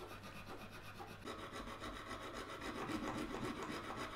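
Small hand hacksaw cutting through a hard plastic pin header in quick, regular back-and-forth scraping strokes, growing louder about a second in.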